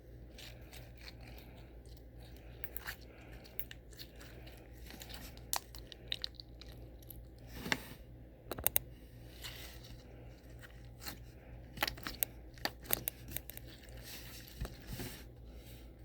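Slime with small add-ins mixed through it being squeezed and kneaded by hand, giving irregular crunchy clicks and crackles, with a cluster of louder pops about eight seconds in and again around twelve seconds in.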